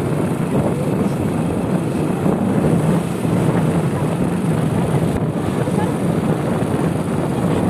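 Steady low rumble and wind noise of a vehicle travelling along a road, heard from on board.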